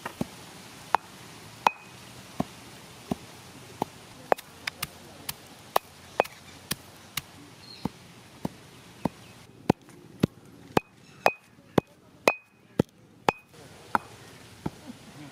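A long stone pestle pounding coriander seeds in a stone mortar: sharp, regular knocks about two a second, some with a brief high ring.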